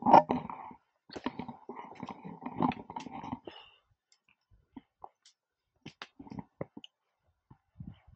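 Footsteps crunching on a rocky, gravelly trail for about the first three and a half seconds, then stopping, followed by scattered light clicks and rustles.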